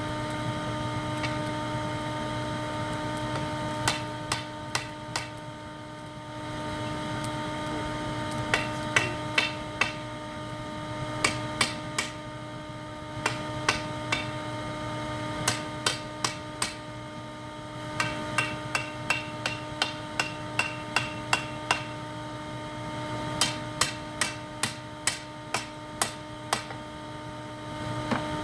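A hand hammer strikes red-hot 5160 high-carbon spring steel on an anvil, about three blows a second, in bursts of a few to a dozen blows with short pauses between; the anvil rings after many strikes. Under it runs a steady hum from the shop vac blowing air into the charcoal pit forge.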